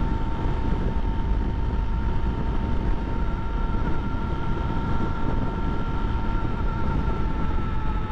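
Honda XRE300's single-cylinder engine running steadily at highway cruising speed, about 100 km/h, under a constant rush of wind and road noise. A steady whine from the bike dips slightly in pitch near the end as it slows.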